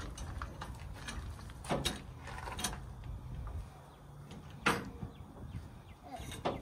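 Semi-trailer landing gear being cranked by hand, its crank handle and gearbox giving several irregular metallic clanks over a low steady rumble.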